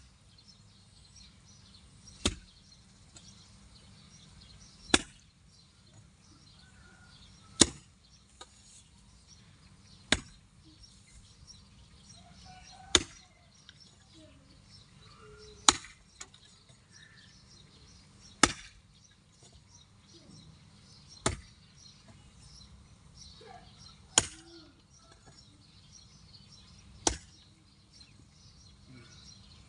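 A long-handled digging tool chopping into hard, dry ground in slow, regular strokes, one sharp strike about every two and a half to three seconds.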